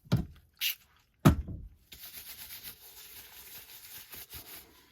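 Steamer pot being opened: a few sharp knocks with a loud clank about a second in, then about three seconds of light rattling.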